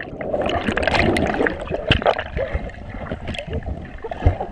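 Underwater bubbling and rushing water picked up by a GoPro camera submerged in a swimming pool. It is busiest over the first two seconds, then thins out to scattered clicks and gurgles.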